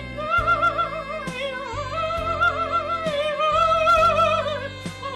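Music: an operatic voice singing with wide vibrato over instrumental backing with a bass line and light percussion.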